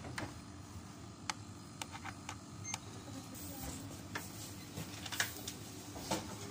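Indoor background noise: a low steady hum with scattered sharp clicks and knocks, and one short high beep about two and a half seconds in.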